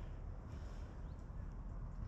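Outdoor ambience: a steady low rumble of wind on the microphone.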